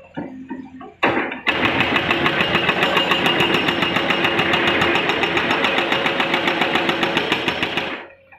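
Hydraulic breaker on a Volvo EC330BLC excavator hammering rock: a few separate knocks, then from about a second and a half in a rapid, even stream of blows, several a second, that stops suddenly near the end.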